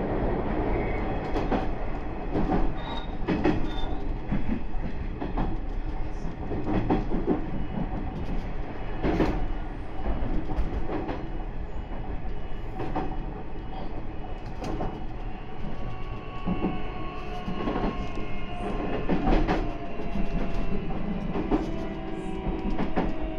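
Nishitetsu 9000 series electric train running at speed, heard from inside the cab: a steady rumble of wheels on rail, with irregular sharp clacks as the wheels cross rail joints. A steady whine joins in about two-thirds of the way through.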